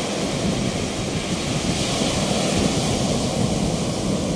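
Rough sea surf breaking on a beach: a steady rush of heavy waves, with wind buffeting the microphone.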